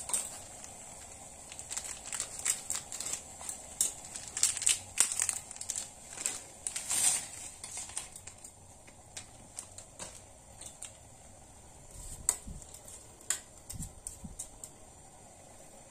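Crinkling and rustling of a plastic pasta packet with many light clicks and crackles as dry spaghetti goes into a mug of boiling water, over a steady faint hiss. Near the end a metal spoon stirs in the enamel mug, with a few soft knocks.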